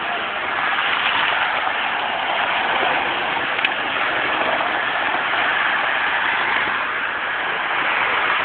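Steady roar of highway traffic passing below, a continuous wash of tyre and engine noise, with one sharp click about three and a half seconds in.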